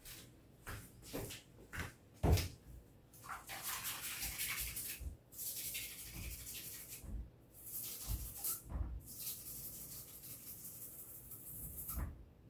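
A few knocks of kitchen items being handled, the loudest about two seconds in. Then kitchen tap water runs with a steady hiss for most of the rest, broken off briefly a few times as something is held under it.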